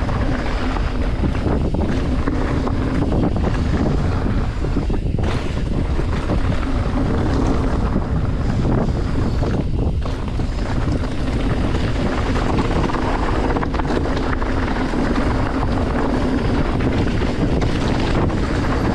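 Wind buffeting an action camera's microphone on a mountain bike descending a gravel trail, over the steady noise of tyres rolling on loose stones, with a few short clatters from the bike.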